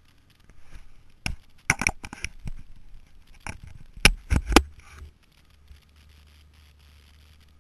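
A series of sharp knocks and rattles from a jolting helmet-mounted camera during a snowmobile ride over a bumpy trail: a cluster near two seconds in and three loud ones around four seconds in, over a low rumble. A faint low drone remains after about five seconds.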